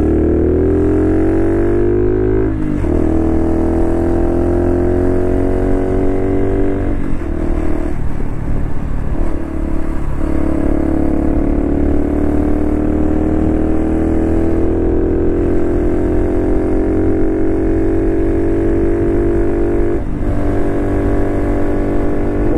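Honda Cross Cub JA45's 110 cc single-cylinder engine pulling on the move, its note rising in pitch and falling back briefly a few times at the gear changes.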